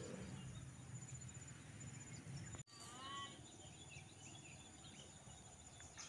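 Faint rural outdoor ambience: a steady high-pitched insect trill over a low background rumble, broken off suddenly about two and a half seconds in. A brief bird call follows, then scattered small bird chirps.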